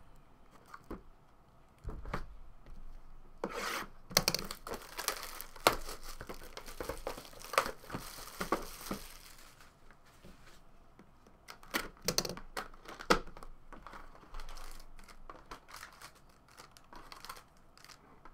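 Plastic shrink wrap being torn off a sealed box of trading cards and crumpled, a dense run of crackling rustles in the first half. After that come scattered clicks and rustles as the box is handled and opened.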